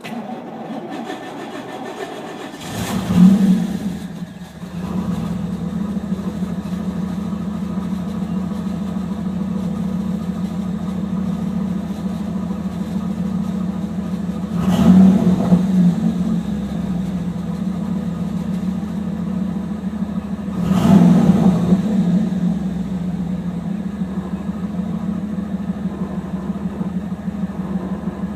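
1991 Pontiac Trans Am's tuned-port-injected V8 cranking on the starter for a couple of seconds on a hot restart, catching with a rev about three seconds in, then idling steadily with two throttle blips. The car is prone to starting hard once warm.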